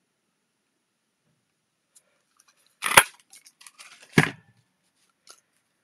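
A hand-held oval paper punch clunks sharply as it is pressed through cardstock, about three seconds in. Some light paper rustles and clicks follow, then a second, duller knock about a second later.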